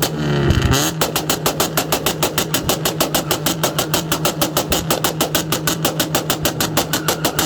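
Engine idling with an even, loping beat of about seven pulses a second, after a short rev whose pitch falls away in the first second.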